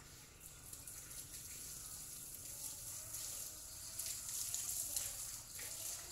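Water running from an outdoor tap and splashing, louder about four seconds in and easing off near the end.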